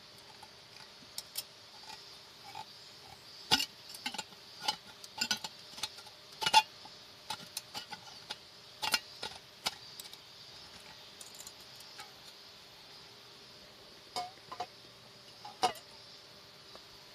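Scattered clinks and light knocks of camp cookware and utensils being handled, loudest about three and a half and six and a half seconds in. Under them runs a steady high insect drone.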